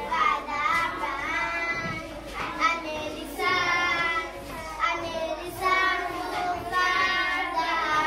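A large group of young schoolchildren singing a song together.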